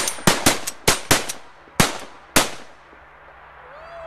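A rapid volley of shotgun blasts from several hunters firing together: about ten shots in two and a half seconds, close together at first and then further apart. Near the end there is a single goose honk that rises and falls in pitch.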